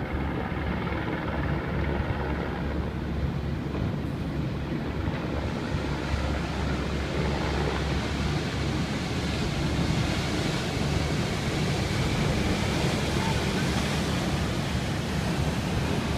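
Water rushing and splashing as a large ship's hull slides down the slipway into the sea at its launch, over a steady low rumble. The rush of water grows louder from about six seconds in as the hull pushes up a bow wave.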